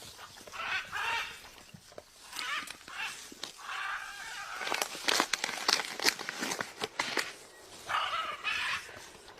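Animal calls, a run of short calls that come and go several times, with a cluster of sharp clicks or taps around the middle.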